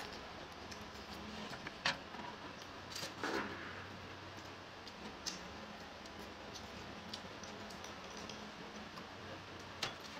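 Table eating sounds: scattered small clicks and taps, with a brief rustle about three seconds in, as a person eats a roll wrapped in greens, over a low steady hum.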